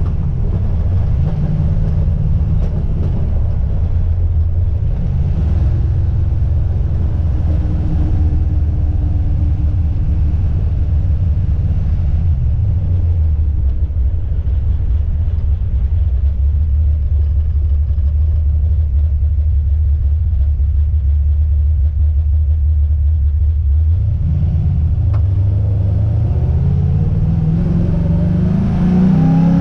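Car being driven, engine and road noise: the revs drop early on, hold steady for a long stretch in the middle, then climb as the car accelerates in the last few seconds.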